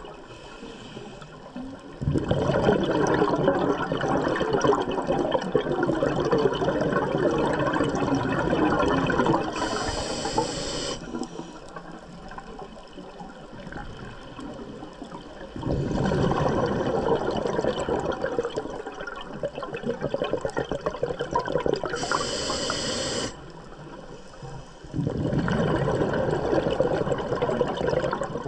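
A scuba diver breathing underwater through a regulator. Three long bubbling rushes of exhaled air alternate with two short, high hisses of the regulator as the diver breathes in.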